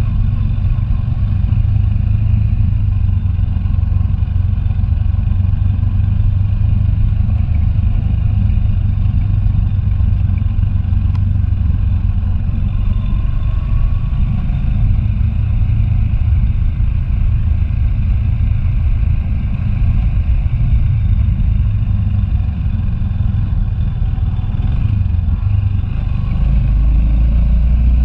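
Motorcycle engine running steadily while riding along a dirt road, with a constant low rumble. Near the end the engine note drops lower and grows a little louder.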